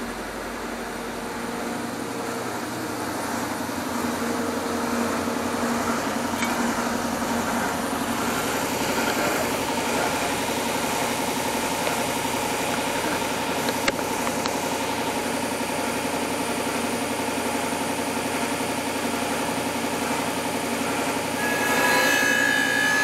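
Electric belt-and-disc sander running steadily. Near the end, a steel knife blade is pressed against the sanding disc, adding a louder, harsher grinding rasp as it throws sparks.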